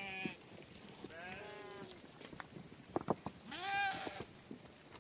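Sheep or goats of a herded flock bleating, three wavering calls in turn, the loudest near the end. A few sharp knocks come just before the last call.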